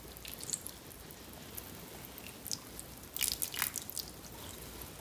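Water from a plastic measuring jug pattering onto a sphagnum-moss-topped potted plant. Much of it drips and splashes onto the wooden shelf in a run of short irregular splats, busiest about three seconds in.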